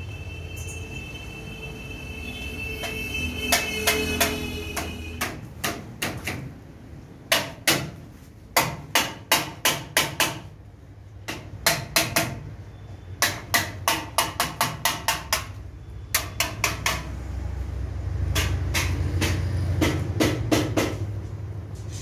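Hand hammer blows, each with a short ring, in quick runs of several strikes with short pauses between.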